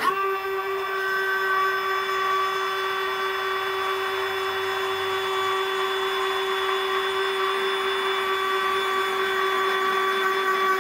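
Electric retractable landing gear of a Hangar 9 OV-10 Bronco model plane folding its main wheel up into the nacelle: the retract unit's small motor whines at a steady pitch, starting abruptly.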